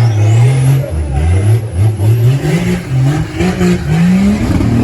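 Engine of an off-road 4x4 vehicle being revved hard, its pitch climbing in repeated surges that drop back and climb again, ending higher.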